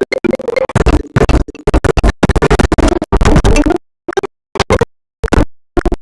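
Ringtone music clip with DJ scratching, chopped into stuttering bursts that start abruptly and thin into short, separate stabs after about four seconds.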